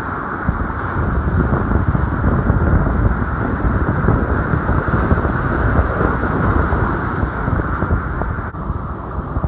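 Strong wind buffeting the microphone over the steady wash of rough surf breaking on the beach, with a sudden break about eight and a half seconds in.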